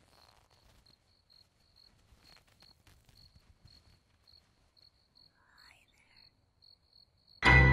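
Crickets chirping faintly, short chirps at one steady high pitch, two or three a second. Near the end a loud chord from the piano-and-cello score strikes suddenly and rings on.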